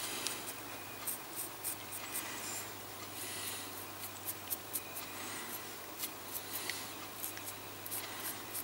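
A small dry brush rubbing lightly over the raised, sculpted scales of a snake miniature: soft, scratchy strokes with many small ticks as the bristles catch the scale edges, laying on a dry-brushed highlight.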